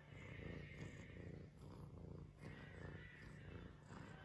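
Grey domestic cat purring faintly, in pulses about a second long.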